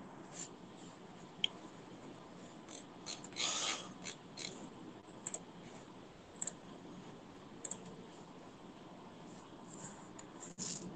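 Faint scattered clicks and small rustling over low background hiss, with a brief louder scrape or rustle about three and a half seconds in and another near the end.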